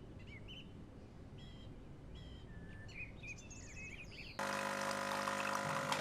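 Small birds chirping and singing, many short rising and falling calls, over a low background rumble of outdoor noise. A little over four seconds in, this cuts abruptly to soft music.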